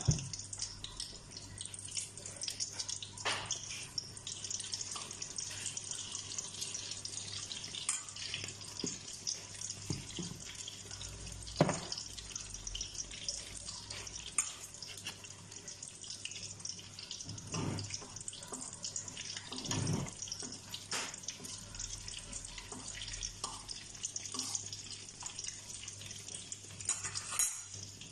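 Tortang malunggay (moringa leaves and string beans in beaten egg) frying in oil in a stainless steel skillet: a steady sizzle and crackle, with a few louder pops.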